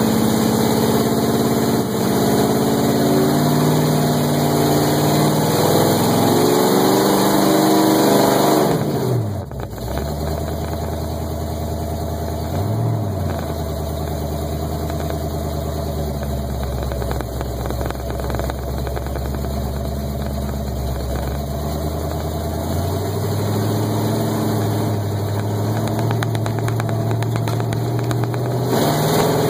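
Mud-bog truck's engine heard from inside the cab, held at high revs, then falling off sharply about nine seconds in to a lower, steady speed. A quick blip of the throttle follows a few seconds later, and the revs climb again twice toward the end.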